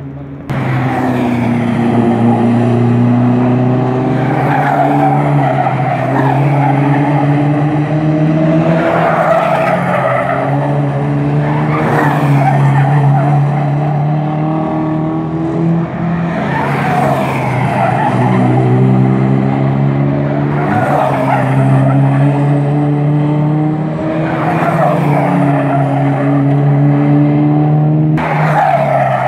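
Cars sliding through a track corner with engines held at high revs and tyres squealing. The screech swells again every few seconds as each car comes through.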